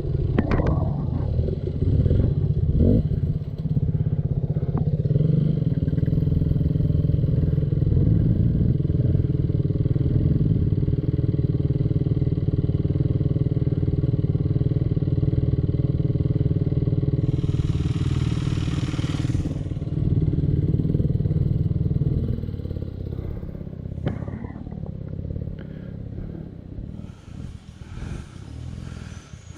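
Off-road motorcycle engine running at a steady, low pitch for most of the stretch, then falling away about 22 seconds in. Briefly near the middle there is a loud hiss.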